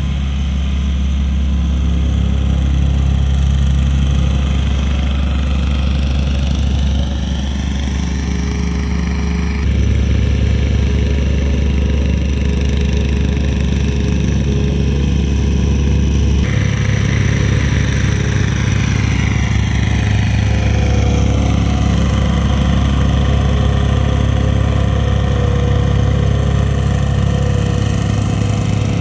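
Diesel engines of earthmoving machinery running steadily at close range, with a low hum whose note shifts about a third of the way in and again just past halfway.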